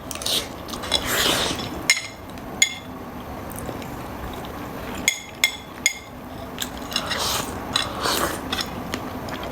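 Utensils clinking and scraping against a bowl of food, a string of light, separate clinks with soft stirring and scraping between them, as the braised pork rice is mixed and eaten.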